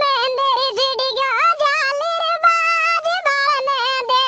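A single pitch-raised, chipmunk-like cartoon voice singing a folk song in held, wavering notes with short breaks between phrases.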